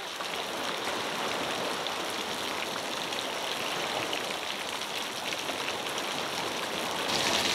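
Ocean surf washing in on a shallow beach: a steady rushing hiss of small waves. About seven seconds in it cuts to a louder, hissier sound of falling water.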